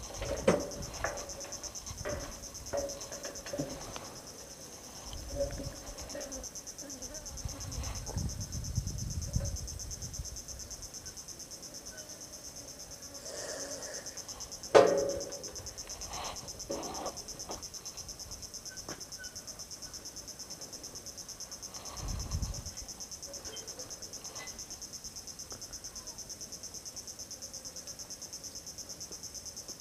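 Steady, high-pitched chorus of insects buzzing, with a few handling knocks near the start, low rumbles and one sharp click about halfway through.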